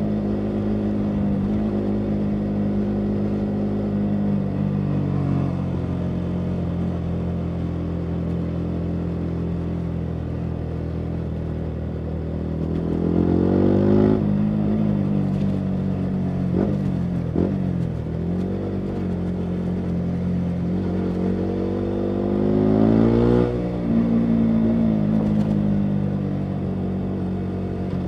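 The 125 cc single-cylinder four-stroke engine of a 2019 Yamaha MT-125, heard through a full Akrapovic exhaust under way on the road. It runs steadily with the pitch slowly sinking, then revs up sharply about halfway through with a couple of short sharp pops off the throttle after it, and revs up again near the end before dropping back.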